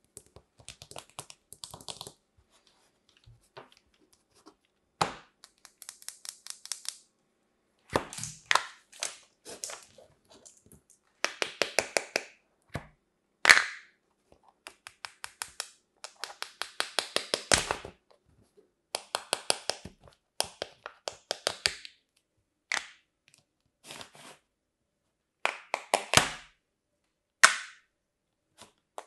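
Kinetic sand being worked out of plastic toy molds: crisp crackling and crunching in bursts of rapid ticks, a second or two each, with short pauses between. A few single sharp clicks and taps come from the plastic molds.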